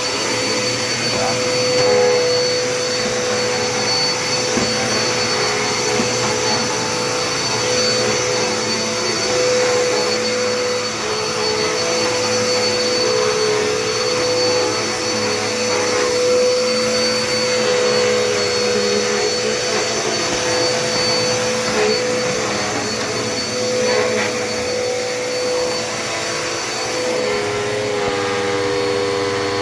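Dirt Devil Endura Reach upright vacuum cleaner running steadily, its motor whine wavering slightly as it is worked across the floor. The tone shifts to a steadier hum near the end.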